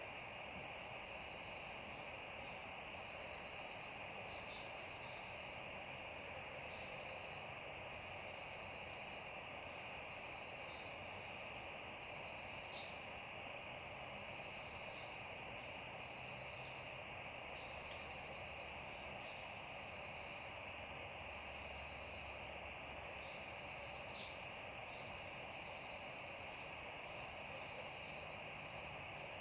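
Crickets trilling at night in a steady, continuous high-pitched chorus over a soft, even hiss.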